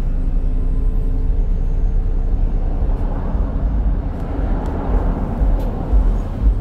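Inside a Volgabus-6271.G2 articulated city bus under way: steady low rumble of its Yuchai YC6L compressed-natural-gas engine and road noise, with a few light clicks and rattles.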